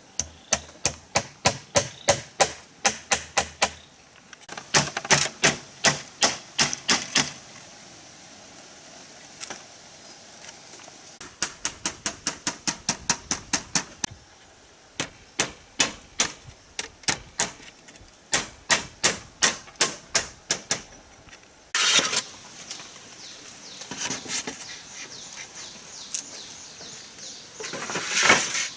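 Hand-tool strikes on bamboo: rapid sharp knocks, about three or four a second, in runs of a few seconds with short pauses between. Near the end the knocks give way to a rustling, scraping noise.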